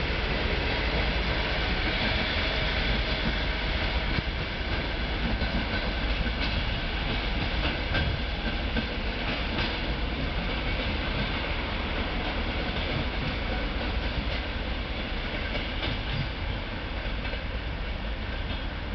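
Passenger coaches of a departing express train rolling away along the track. The wheel-on-rail noise is steady, with occasional faint clicks, and slowly fades as the train pulls away.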